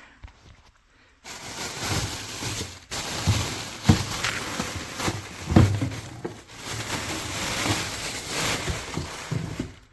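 Packaging rustling and crinkling as an electric kettle is unwrapped, starting about a second in, with a couple of knocks along the way.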